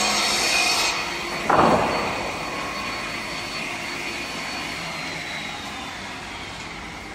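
Six-blade multi-rip panel sizing saw cutting a board lengthwise on its roller feed; the dense cutting noise stops about a second in as the panel clears the blades. A brief loud downward swoosh follows, then the machine runs on with a high whine that slowly falls in pitch.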